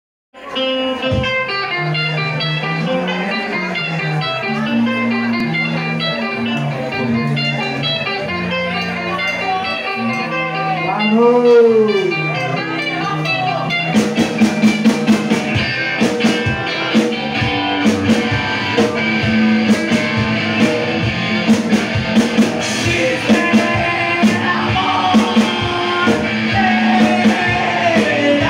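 A rock band playing live: electric guitars play on their own for about the first fourteen seconds, then the drums and the full band come in. A singer's voice is heard over the band near the end.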